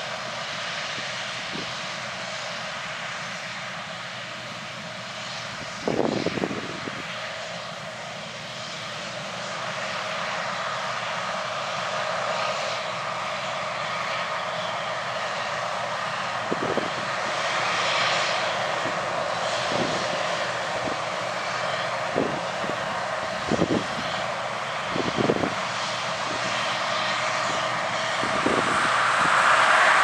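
Case IH Axial-Flow 2577 combine running while harvesting corn: a steady distant machine drone that grows louder near the end as the combine comes closer. A few brief low bumps, likely wind on the microphone, cut in now and then.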